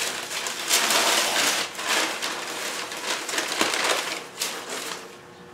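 Large sheets of paper rustling and crinkling as they are handled and pulled off a pane of glass, in several uneven surges that die down near the end.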